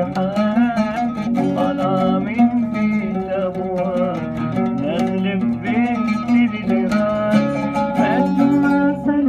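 An oud played with a steady run of plucked notes while a man sings along, his voice wavering and sliding between notes.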